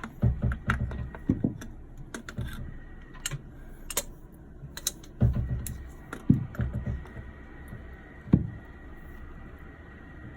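Irregular clicks and knocks of hands working a replacement toilet water inlet valve, threading it onto the taped supply pipe fitting. The knocks come in bunches near the start and about five seconds in, with one sharp knock about eight seconds in.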